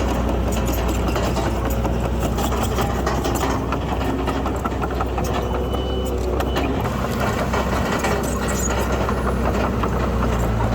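Heavy diesel construction machine running steadily with a deep engine note, with many small clanks and rattles over it.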